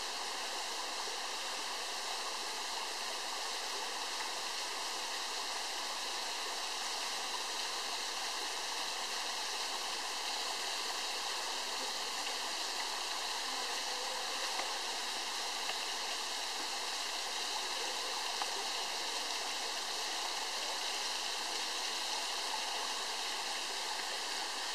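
Small waterfall falling down a sandstone rock face into a rock pool: a steady, even rush of water that does not let up.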